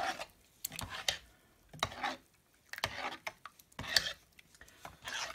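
Blackberry mash, sugar and water being stirred with a metal utensil in an aluminium pot: irregular swishing, sloshing strokes with light scrapes against the pot, roughly one a second.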